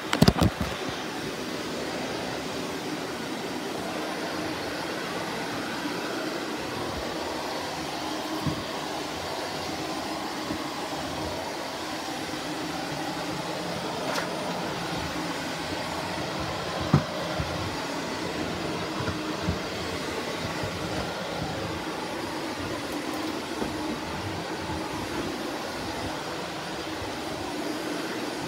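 Shark Navigator Lift-Away Professional upright vacuum cleaner running steadily, a quiet, even motor and suction whir, as it is pushed over a kitchen floor. A few short knocks stand out, the loudest right at the start and another about 17 seconds in.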